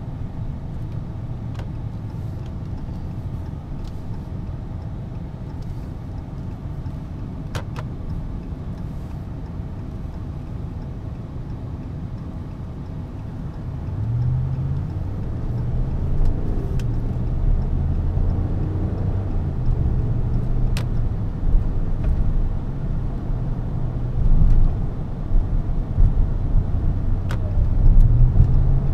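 Ram 1500 pickup heard from inside the cabin: a low, steady engine and road rumble, then about halfway through the engine note grows louder and rises in steps as the truck accelerates through its gears.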